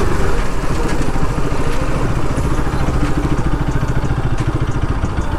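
Bajaj Pulsar RS 200's single-cylinder engine running steadily as the motorcycle is ridden at low speed.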